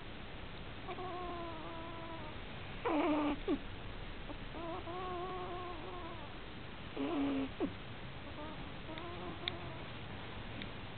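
Pomeranian puppy snoring in deep sleep. It breathes in a slow rhythm about three times: each breath is a drawn-out, pitched snore lasting about a second and a half, followed by a shorter, louder snort.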